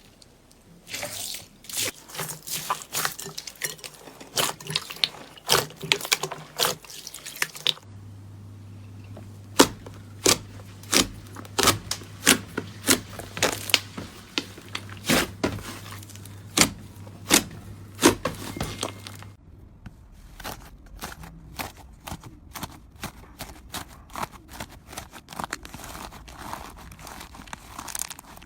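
Slime being squeezed and poked by hand, giving a run of sharp crackling pops and clicks. The character of the sound changes twice. In the middle stretch, single loud pops come about once a second over a low hum.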